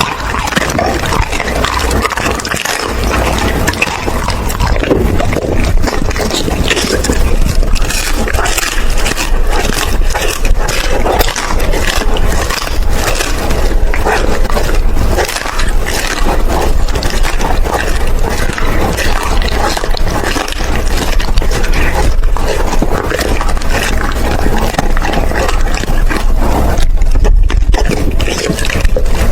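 A Doberman chewing and crunching raw food, a steady run of wet, irregular crunches and crackles.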